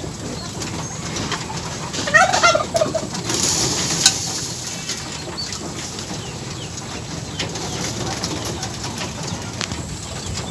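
A flock of young racing pigeons cooing steadily while they feed, with wing flaps and many light clicks of beaks pecking grain. A short, higher pitched call about two seconds in, and one sharp click about four seconds in.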